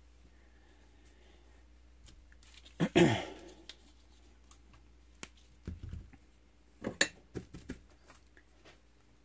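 Workbench handling noises: a loud knock with a short ringing clatter about three seconds in, then a thud and a quick run of sharper clicks and knocks around seven seconds, as the soldering iron and solder reel are picked up.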